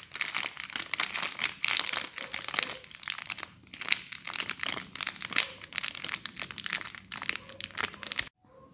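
Dense, irregular crinkling and crackling handling noise while chickpea flour is added to a bowl of mashed potato and garlic; it cuts off suddenly near the end.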